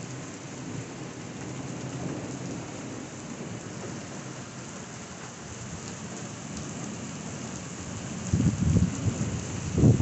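Heavy downpour of rain falling steadily on a wet street. About eight seconds in, a loud rumble of thunder breaks in and grows louder toward the end.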